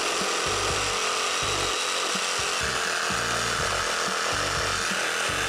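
Bosch GSA 18V-LI C cordless reciprocating saw running and cutting into wood, with a steady, unbroken noise.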